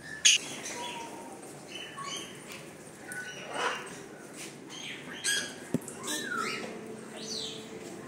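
Pet parrots in an aviary making scattered short squawks and whistled calls, including a couple of falling whistles near the end, with a sharp knock just after the start.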